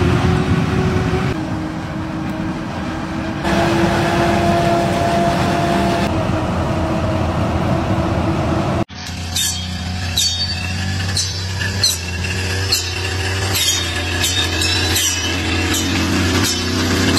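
Claas self-propelled forage harvester chopping standing maize with a tractor and trailer running alongside: a loud, steady engine and machinery drone with a pitched whine. After a sudden cut about nine seconds in, a steady low hum with a string of sharp clicks.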